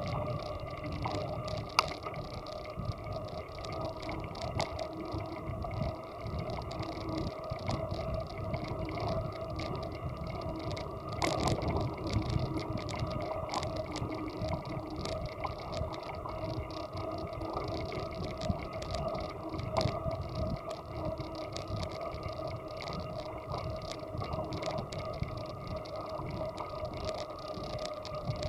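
A bicycle riding along a paved cycle path, heard from a camera on the bike: a steady hum with a few held tones and low rumble, broken by frequent small clicks and rattles, with one sharper knock about two seconds in.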